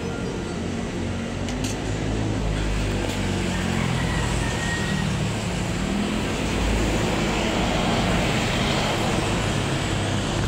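Road traffic noise: a motor vehicle engine running over a steady low rumble of passing traffic, growing a little louder about six seconds in.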